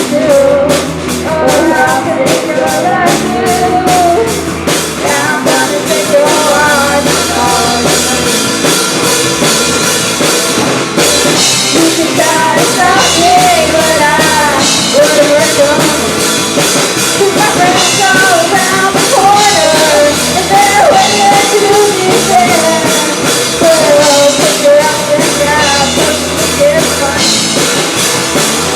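Rock band playing live: drums, bass and guitar with a singer's voice over them.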